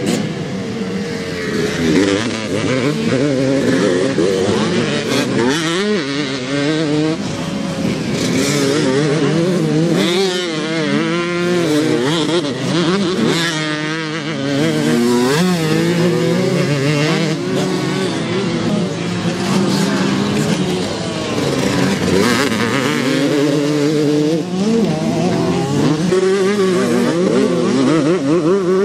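Motocross bike engines revving hard, rising and falling in pitch as riders throttle up, shift and back off over a jump and through a turn; around the middle two or more bikes are heard at once, their pitches crossing.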